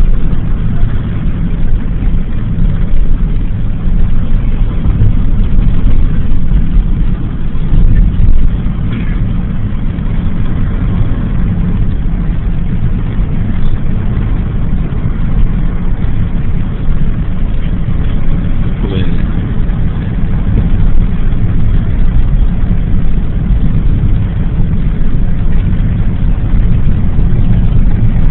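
A moving car's engine and tyre noise heard from inside the cabin: a loud, steady low rumble as it drives along a highway.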